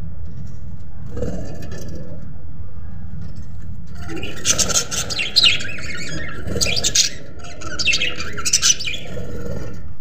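Budgerigars chirping in quick high bursts, starting about four seconds in and coming in three or four clusters. A steady low hum runs underneath.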